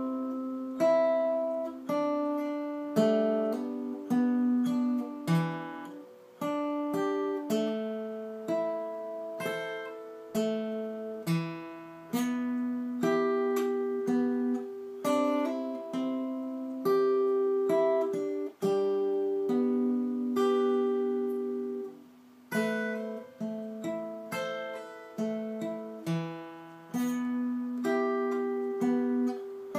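Acoustic guitar played slowly, picking single notes and chord tones that ring and fade one after another, about one note a second.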